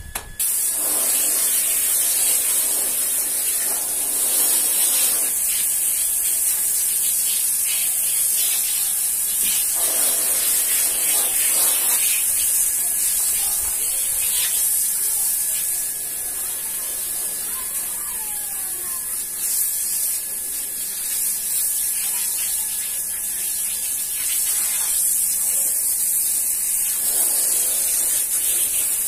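Hose spray nozzle jetting water onto a wet rug and tiled floor: a steady hiss that starts just after the beginning and dips a little in the middle.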